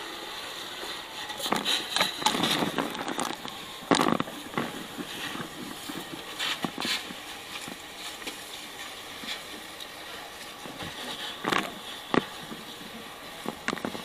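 Fire hose nozzle spraying water into a burning building: a steady hiss broken by irregular knocks and crackles, the loudest about four seconds in.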